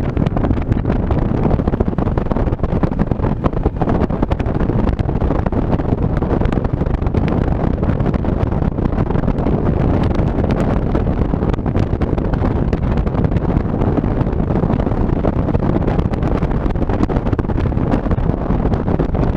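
Ranger bass boat under way at speed: steady outboard and hull noise on the water, heavily buffeted by wind on the microphone, with frequent short knocks as the hull meets the chop.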